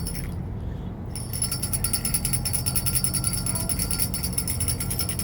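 Handbells shaken rapidly and ringing continuously, with a break of about a second near the start before the ringing resumes.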